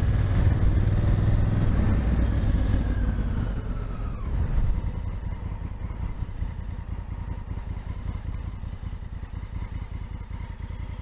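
Honda Africa Twin's parallel-twin engine, fitted with a modified exhaust, running as the bike rolls off and slows, its pitch falling over the first four seconds. It then settles into a quieter, even idle.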